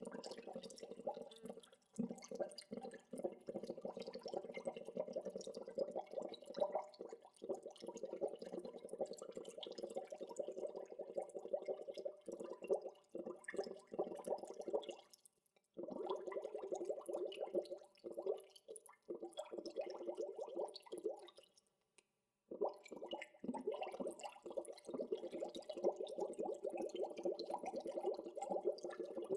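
Water bubbling: a steady, dense stream of small bubble pops and gurgles. It drops out briefly twice, a little past halfway and again about three-quarters through.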